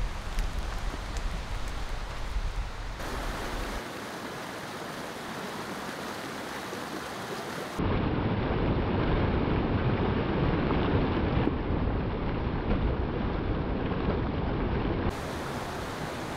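Steady outdoor noise, then about eight seconds in a loud, dense rush of a fast whitewater creek for about seven seconds. It cuts off abruptly to quieter noise near the end.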